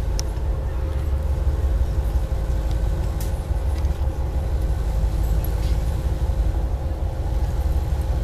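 Steady low rumble and constant hum of a passenger ferry's engines and machinery under way, heard inside the passenger lounge, with a few faint clicks.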